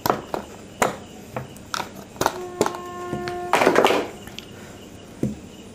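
Neckband earphones and their cable being lifted out of a cardboard packaging tray: light clicks and taps, then a short rustle of the packaging about four seconds in. A steady pitched tone of about a second sounds partway through.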